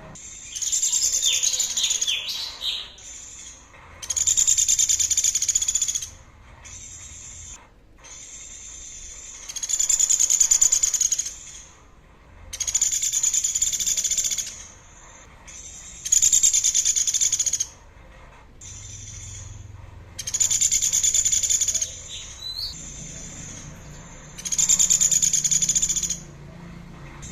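A songbird repeatedly giving a harsh, buzzy, high-pitched rattling phrase about two seconds long, about seven times with short pauses and softer notes between, as recorded for training cage birds.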